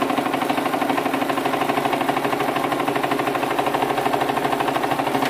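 Electric household sewing machine running steadily at speed, the needle stitching a seam through layered fabric with a fast, even rhythm.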